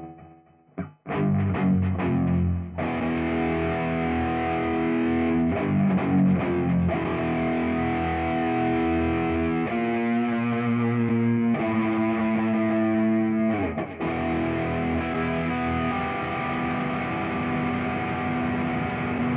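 Samick NSHG 100 FR electric guitar played through distortion from laptop effects software: distorted chords and held notes ringing and changing every couple of seconds, starting about a second in.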